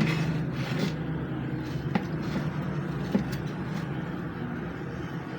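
Hot-air heat gun blowing steadily during desoldering, a fan hum with a rush of air that eases after the first second, with a few light clicks of work on the circuit board.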